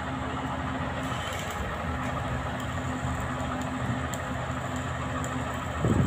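An engine idling steadily, a low even hum over street noise.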